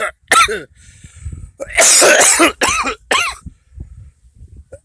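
A man coughing open-mouthed, uncovered: a short cough, a breath drawn in, then a longer coughing burst and two short coughs. It is the harsh, open 'aah' cough that spreads germs, shown as the wrong way to cough.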